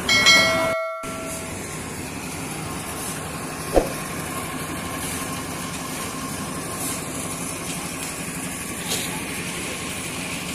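Drum concrete mixer running steadily, a continuous machine drone with a low hum, as concrete is mixed for a roof slab. It opens with a short ringing chime and a brief dropout, and a single sharp click comes about four seconds in.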